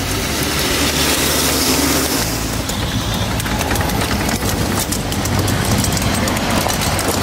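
Ride-on scale model train passing close by: the locomotive's engine running steadily, and the wheels clicking over the rail joints as the cars roll past.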